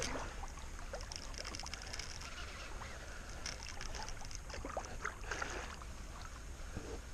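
Water lapping and trickling against a plastic sit-on-top kayak's hull, with scattered faint clicks, over a steady low rumble.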